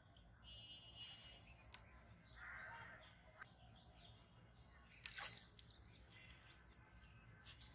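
Quiet pond-side ambience with faint bird chirps. About five seconds in comes a short, sharp burst of noise as the bamboo pole is struck and a hooked fish churns the water.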